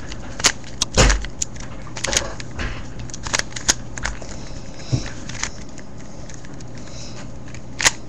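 A plastic Rubik's cube being handled and set on its plastic stand: scattered clicks and knocks, the heaviest about a second in, over a low steady hum.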